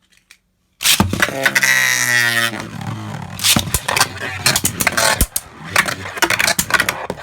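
Beyblade tops launched into a plastic stadium: a sudden whir from the launcher that falls in pitch over about a second and a half, then the spinning tops scraping and clashing in the stadium with rapid sharp clicks.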